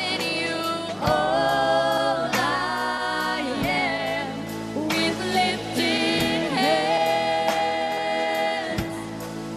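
A contemporary worship song performed by a band, with a singer holding long, drawn-out notes over sustained instrumental chords.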